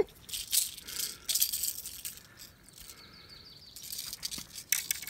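Rattling and rustling in short irregular bursts as a fishing lure is worked loose by hand from a northern pike's mouth, with a quieter spell midway.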